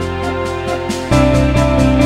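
Instrumental background music with a steady beat; a new pulsing bass line comes in about a second in.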